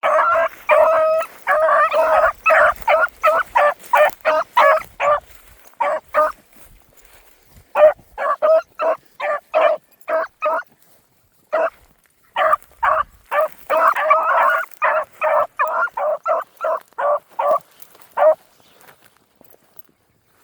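Young dogs barking in quick runs of high barks, about three a second, with a few short pauses. At times the barks overlap as more than one dog joins in.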